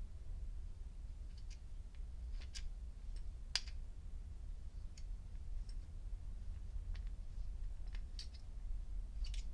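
Screwdriver tip pushing cotton wadding into the metal tank of a Thorens petrol lighter: scattered light clicks and scrapes as the steel knocks against the lighter's metal case, the sharpest about three and a half seconds in.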